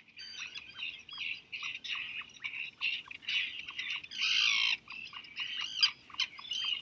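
Birds calling: a rapid, busy string of high chirps and short falling notes, with two longer, harsher cries a little past three and four seconds in.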